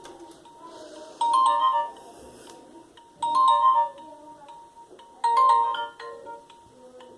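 Nokia 1110i mobile phone playing a ringtone through its small loudspeaker: a short, bright phrase of beeping notes, each phrase under a second long, repeated three times about two seconds apart.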